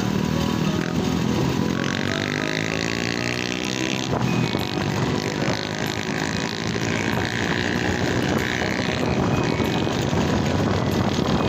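Motorcycle engine running under way; its pitch climbs from about a second in to about four seconds in as it accelerates, then holds steady.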